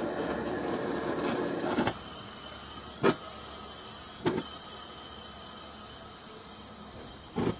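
Cheap butane gas torch gun burning with a steady hiss that drops down quieter about two seconds in, with short sharp pops about three seconds in, about four seconds in and near the end.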